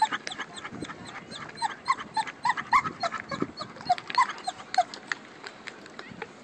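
A dog whining and yelping in short, high rising cries, several a second.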